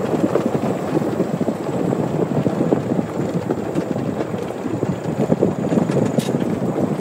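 Off-road vehicle running and rattling along a rough trail, a steady loud rumble full of small jolts, with wind buffeting the microphone.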